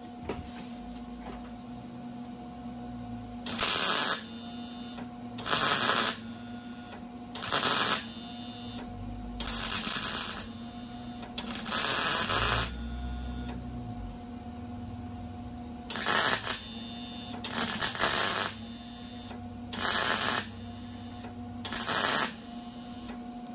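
Wire-feed welder tack welding a thin sheet-steel patch panel: about nine short bursts of arc crackle, each under a second and roughly two seconds apart, with a pause about two-thirds of the way through. A steady hum runs under them.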